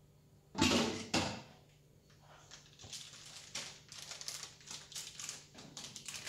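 Two sharp knocks about a second in, then a quick, continuous crinkling and crackling of a plastic packet being handled and folded.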